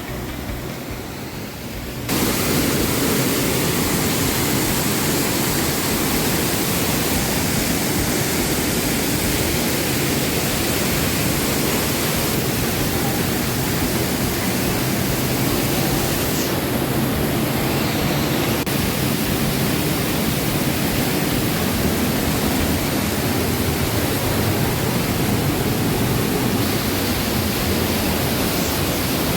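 A waterfall's water rushing, a loud, steady hiss of falling water and spray. It steps up in loudness about two seconds in.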